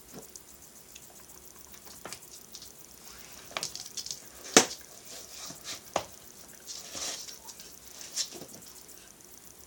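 A young lamb's hooves tapping and scuffling on a hard tiled floor: scattered irregular clicks, with one sharp knock about halfway through.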